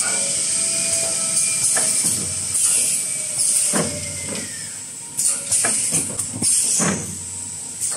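Kitchen towel roll packing machine running: a steady high hiss, with short bursts of compressed-air hissing from its pneumatic actuators and sharp clacks of the moving mechanism, repeating every half second or so in the second half.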